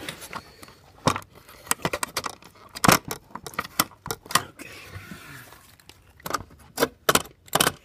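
Irregular clicks, taps and scrapes as fingers work at a socketed chip on a circuit board, trying to pull it out, and the board is handled against its metal housing.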